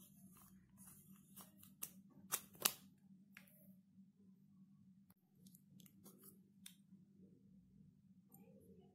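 Light plastic clicks and taps from a lipstick tube being handled and uncapped, the sharpest pair about two and a half seconds in, over a faint steady low hum.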